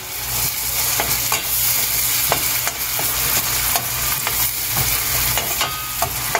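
Chopped garlic, onion, chilli and capsicum sizzling in oil in a stainless steel pan while a metal spoon stirs in red chilli sauce and ketchup. The spoon clicks and scrapes against the pan every half second or so over a steady sizzle.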